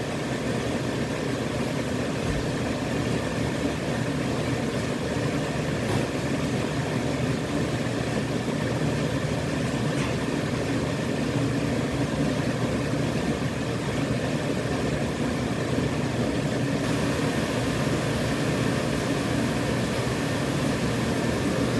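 Automatic disposable mask production machine running steadily: a continuous mechanical hum with a low drone, with a couple of faint clicks.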